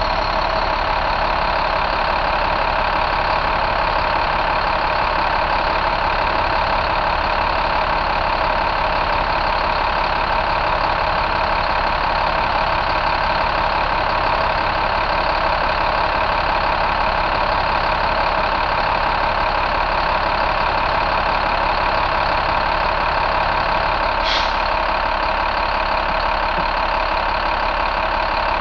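2012 International MaxxForce DT inline-six diesel engine idling steadily, with one brief click late on.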